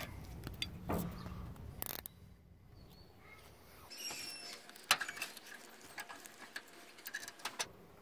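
Faint scattered clicks and short rasping zips of nylon zip ties being pulled tight around a compressed GM door hinge spring, with small knocks of handling the spring.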